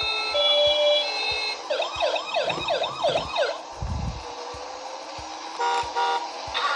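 Electronic ambulance siren sound effect: an alternating two-tone hi-lo siren, then about two seconds of fast up-and-down wailing siren. A low thump follows in the middle, and two short horn beeps come near the end, over a faint regular low tick.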